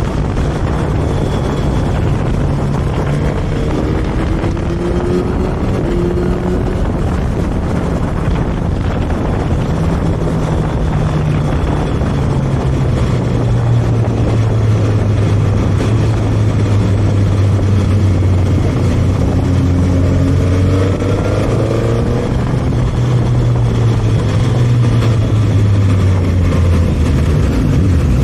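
Suzuki GSX-S1000's inline-four engine running under way, heard onboard over a steady rush of wind and road noise. Its note drops in pitch about midway through and dips again near the end as the bike slows.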